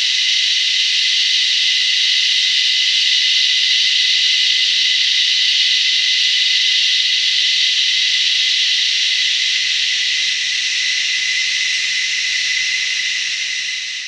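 A chorus of cicadas singing: a loud, steady, high-pitched buzz with one clear unwavering tone running through it.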